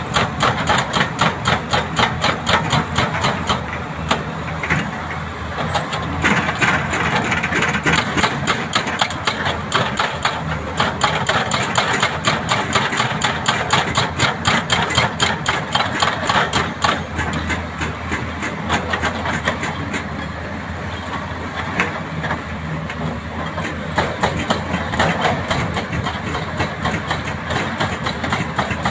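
Hydraulic rock breaker on an excavator hammering into hard rock in rapid, even blows, several a second, over the steady drone of the excavator's diesel engine. The hammering eases for a few seconds past the middle, then picks up again.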